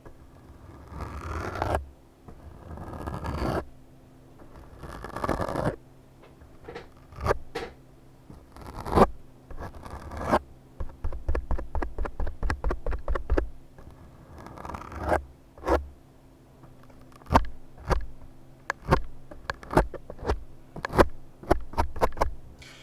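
Close-up ASMR trigger sounds: a few slow scraping strokes, each about a second and a half long, then a string of short, sharp clicks like snips, with a quick run of about four a second in the middle.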